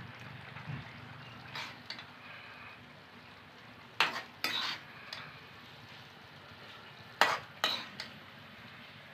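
Steel spoon scraping and knocking against a steel kadai while curry is ladled out onto a plate: two pairs of sharp clinks about three seconds apart, over a faint steady hiss.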